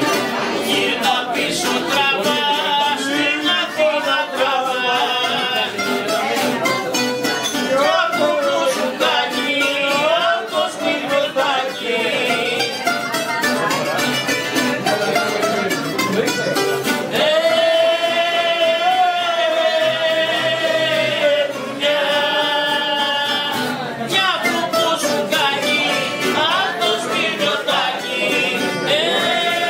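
Bouzouki and acoustic guitar playing a rebetiko tune: the bouzouki carries a sliding, bending melody over the guitar's chords.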